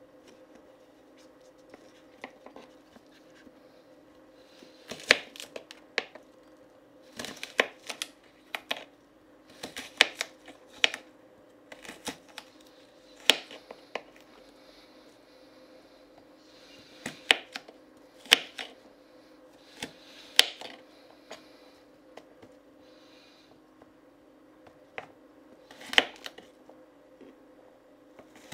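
Kitchen knife slicing carrots on a wooden cutting board: sharp, irregular knocks in short runs of a few cuts, with pauses between runs. A faint steady hum lies underneath.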